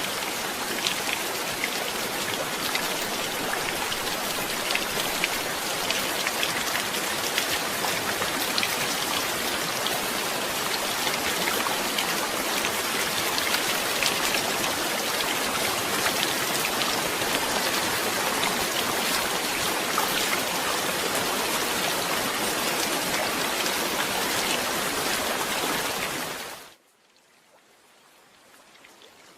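Steady heavy rain, a dense hiss full of individual drops hitting. It cuts off suddenly about 27 seconds in and then rises slowly from near quiet.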